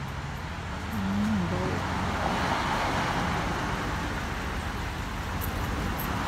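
Car driving on the road: a steady hum of engine and tyre noise that grows a little louder about a second in.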